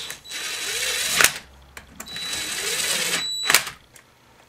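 Cordless driver spinning the chainsaw's two bar-mounting nuts down onto their studs: two short runs, each ending in a sharp click as the nut seats.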